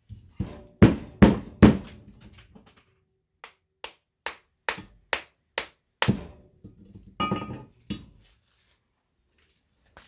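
Hammer blows on a steel-cased fluorescent light ballast being broken apart for its copper: three hard strikes in the first two seconds, then a steady run of lighter blows, about two or three a second, and a few more near the end, some with a short metallic ring.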